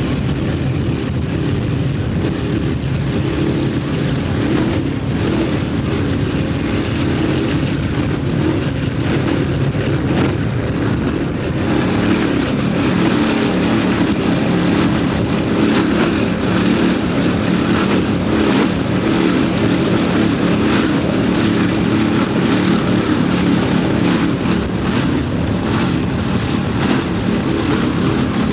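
Loud, steady engine drone with rushing wind noise, from craft running at high speed.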